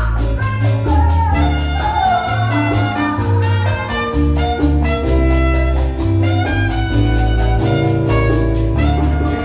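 Live Latin dance band playing, with a trumpet carrying the melody over congas and drum kit keeping a steady beat and a heavy bass line.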